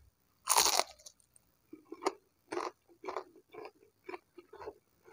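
A bite into crispy battered fried tempeh, with one loud crunch about half a second in, then close-up chewing of the fritter at about two chews a second.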